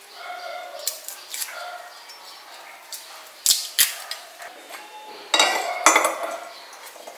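Kitchen knife clicking and scraping against garlic cloves as they are peeled and trimmed. About five and a half seconds in come the loudest clinks, with a short ring, as cloves drop into a stainless steel bowl.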